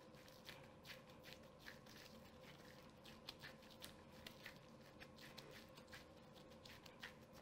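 Faint, irregular soft pats and squishes of disposable-gloved hands pressing and shaping a raw ground-beef patty. A faint steady hum runs underneath.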